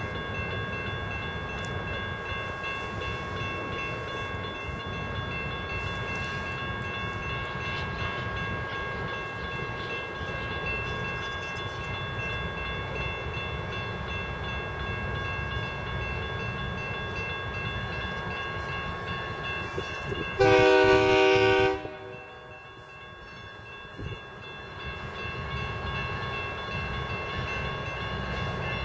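CSX genset switcher locomotive sounding one loud horn blast of about a second about two-thirds of the way in. Before it there is a steady low rumble and steady ringing tones, typical of a grade-crossing signal bell.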